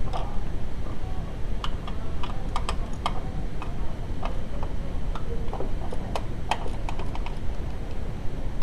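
Irregular light clicks and taps of hand tools and small parts being handled, over a steady low background rumble.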